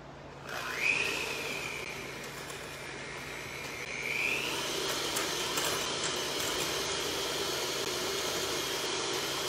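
Electric hand mixer whipping raw eggs in a glass bowl: its motor starts with a rising whine about half a second in, runs steadily, then steps up to a higher speed about four seconds in.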